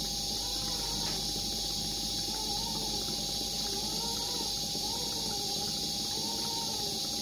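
Steady airy hiss of an infant incubator's air flow, with a constant hum tone under it. A soft pitched sound rises and falls about once a second.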